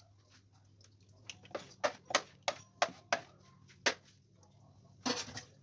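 Raw beef intestine squeezed and worked by hand on a wet plastic tray: a run of about seven short wet squelches and slaps starting a second in, then a longer squelch near the end, over a faint low steady hum.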